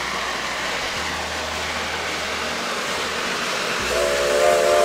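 Steam locomotives hissing loudly as they vent steam from their cylinder cocks. About four seconds in, a steam whistle starts, a steady chord of several notes held on.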